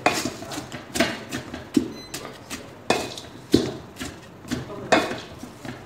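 Wooden spatula knocking and scraping against a stainless steel bowl while mashing a thick date paste with broken biscuit and nuts: irregular knocks, roughly one a second.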